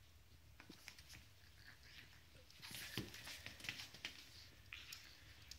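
Faint scuffling and clicking from a French bulldog puppy nosing around close by, with short sniffs and small scrapes that come thicker from about halfway through.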